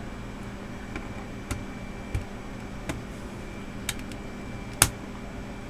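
Scattered sharp plastic clicks and ticks as a small flathead screwdriver pries an Acer Aspire One 532h netbook keyboard out from under its retaining tabs, the loudest click about five seconds in. A steady low hum runs underneath.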